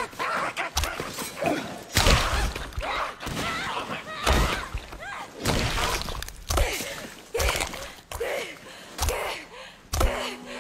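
About a dozen heavy blows, roughly one a second, beating on a goblin's body. Between the strikes come a young woman's strained, gasping cries.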